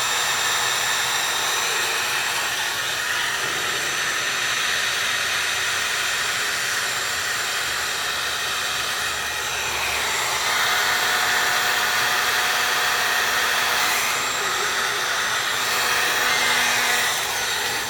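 Electric heat gun blowing steadily, shrinking heat-shrink tubing over a soldered wire splice. The air noise holds even and gets a little louder about ten seconds in, then cuts off at the end.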